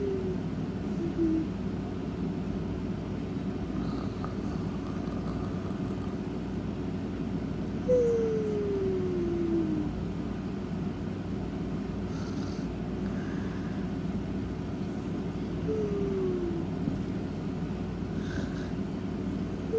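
A sleeping animal snoring steadily with a low, buzzing rattle. A whistling note slides down in pitch every eight seconds or so, once long and then shorter.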